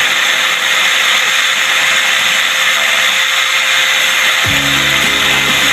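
Angle grinder fitted with a thin paper disc running at full speed, its high steady whine mixed with the scraping of the disc cutting into a plastic pen. Background music comes in about four and a half seconds in.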